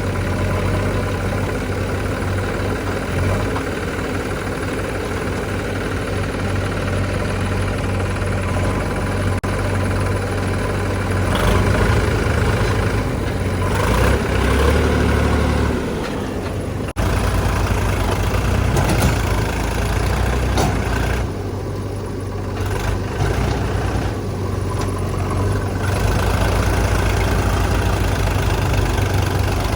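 Heavy diesel engine of a backhoe loader and tractor running steadily, getting louder for a few seconds in the middle, with a sudden brief break about halfway through.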